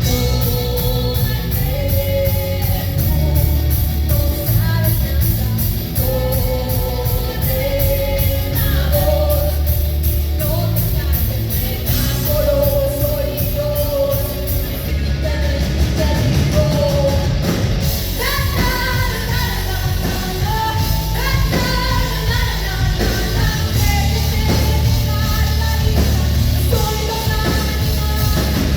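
Live rock power trio playing: electric guitar, bass guitar and drums under a female lead voice singing in Spanish.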